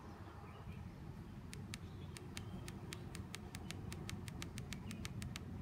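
Rapid run of short ticks from a portable cordless tyre inflator's setting button as the preset pressure is stepped up, about five a second, starting about a second and a half in, over a low steady background rumble.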